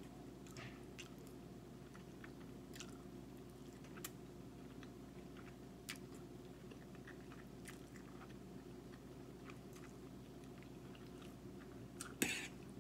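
Close-miked eating sounds: faint chewing with scattered wet mouth clicks while eating angel hair pasta in Alfredo sauce, and a louder wet mouth sound near the end.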